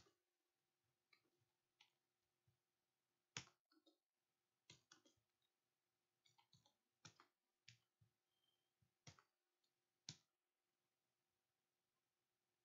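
Faint, irregular clicking of computer keyboard keys being typed: a couple of dozen keystrokes, some in quick runs, with short gaps between.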